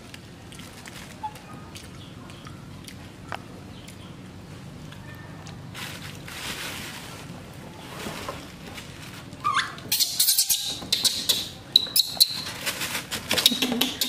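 Baby macaque crying in loud, high-pitched squeals from about two-thirds of the way in, after a quiet stretch with a few light taps and rustles.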